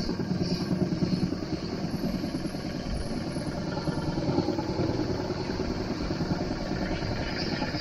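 Small outboard motor running steadily at low speed, pushing a small boat slowly along the water.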